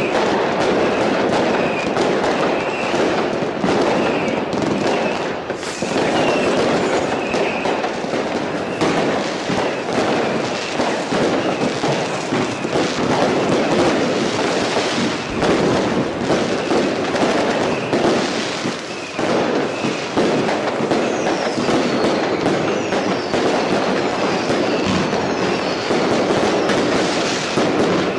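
A continuous barrage of New Year's fireworks: dense crackling and bangs overlapping without a break. Short whistles come through in the first few seconds, and several gliding whistles come in near the end.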